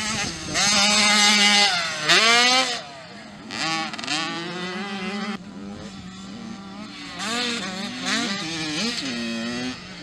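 Small two-stroke engines of mini motocross bikes revving hard, their pitch climbing and dropping again and again through the gears. The engines are loudest in the first three seconds.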